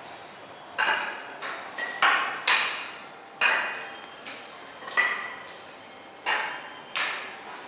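Footsteps of a worker in spiked shoes crossing a freshly rolled, wet epoxy floor coating: about ten sharp clacks with a short ring, coming irregularly every half second to a second.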